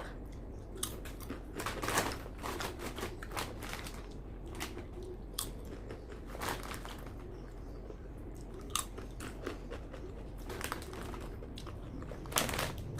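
A person crunching and chewing Lay's potato chips, with irregular crunches in clusters, loudest about two seconds in and again near the end.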